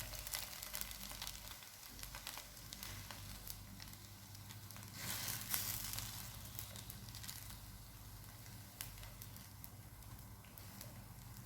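Folded crepe parcels shallow-frying in vegetable ghee in a pan: a soft steady sizzle with fine crackling pops, briefly louder about five seconds in.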